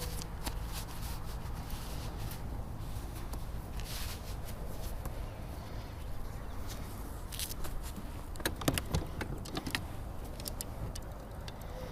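Wind rumbling on the microphone with a faint steady low hum, and scattered small clicks and knocks from the boat and fishing gear, with a quick cluster of them about eight and a half seconds in.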